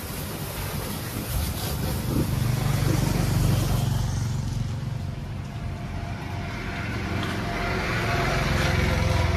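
A Swaraj 744 FE tractor's three-cylinder diesel engine idling with a steady low hum. The hum swells louder a few seconds in and again near the end.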